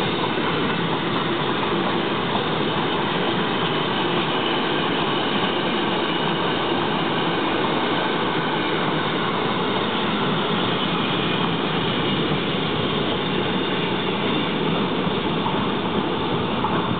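Freight train of intermodal wagons carrying curtain-sided swap bodies rolling past, with a steady, even noise of steel wheels on rail.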